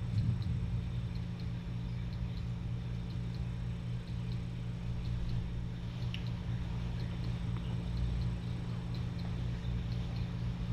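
A kitten lapping and smacking at soft wet food, faint small wet clicks at about four a second, over a steady low hum.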